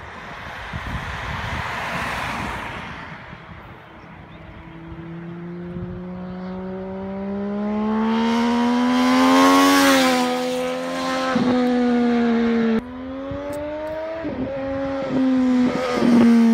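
A car passes with tyre noise in the first few seconds. Then a sport motorcycle's engine approaches, its pitch climbing steadily under acceleration and loudest about ten seconds in. It drops suddenly a little before thirteen seconds and climbs again toward the end, with a few sharp cracks from the exhaust.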